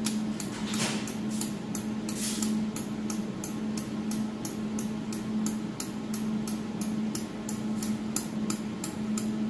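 Even clicking, about three clicks a second, from the jewelry laser welding machine's adjustment mechanism as a position button is turned to move the laser support back. A steady low machine hum runs underneath.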